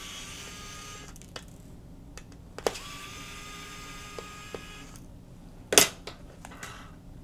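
Electric precision screwdriver whining as it backs out the two screws holding the charging module. It makes two short runs: the first stops about a second in, and the second rises slightly in pitch as it spins up and runs about two seconds. A sharp click comes near the end.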